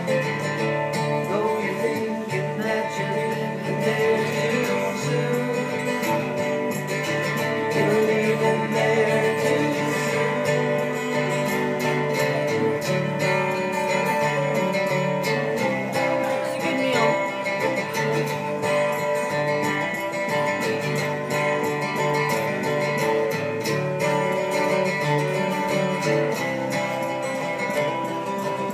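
Live solo acoustic guitar, steadily strummed and amplified through a small PA, with a sustained melody line over it during an instrumental break in the song.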